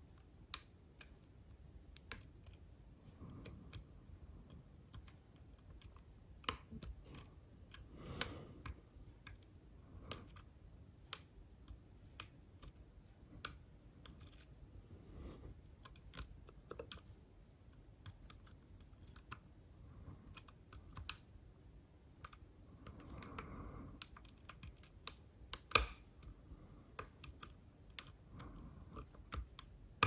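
Small irregular clicks and light scrapes of a lock pick working the pins inside an Assa Ruko cylinder lock, with one sharper click near the end.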